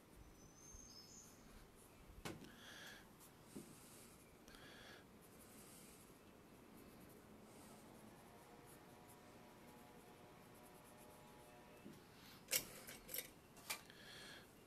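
Faint scratching of a colored pencil shading on drawing paper in short strokes, then a few sharp clicks near the end as pencils are set down and picked up.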